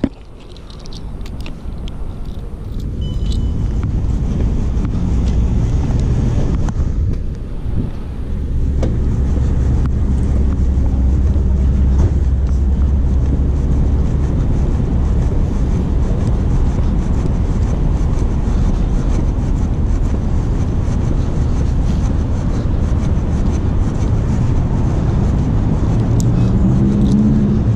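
Traffic going by on a city street, heavily mixed with low wind rumble on a body-worn microphone. Near the end a vehicle's engine rises in pitch as it accelerates.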